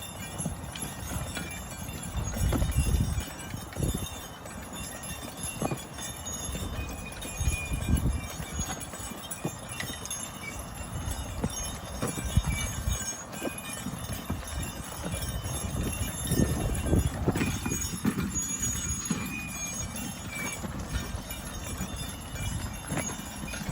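A team of Belgian draft horses walking as they pull a plough through the field, their hooves thudding irregularly.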